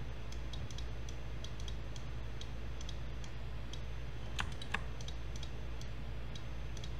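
Light, irregular clicking of a computer mouse and keyboard, with two sharper clicks close together about four and a half seconds in, over a steady low hum.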